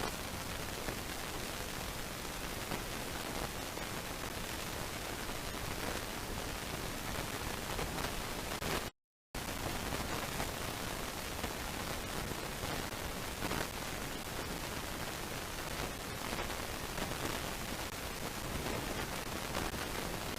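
Steady, even hiss of background noise from a nest camera's microphone, with no bird calls standing out. It cuts to total silence for a moment about nine seconds in, then the same hiss resumes.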